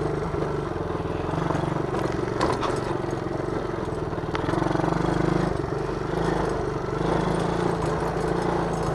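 Small 110 cc ATV engine running at a fairly steady speed, its note rising and dipping slightly with small changes of throttle.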